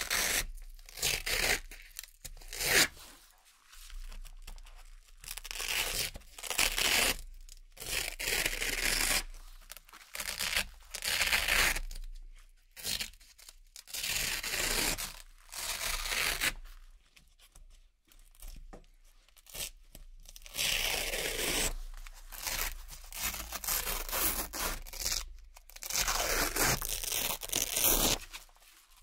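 Velcro hook-and-loop circle patches being peeled off a board one after another: a series of crisp, crunchy ripping tears, each lasting up to a couple of seconds, with short gaps between them.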